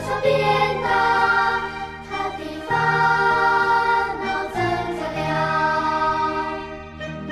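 Background music with held chords that change every second or two.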